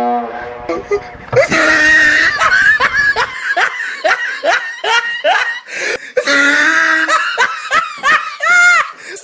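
A person laughing hard in long runs of quick, rising and falling pulses, several a second, with short breaks between runs.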